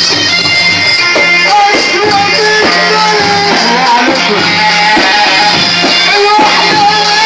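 Loud live Egyptian wedding band music: a melody line gliding up and down over a steady low repeating beat.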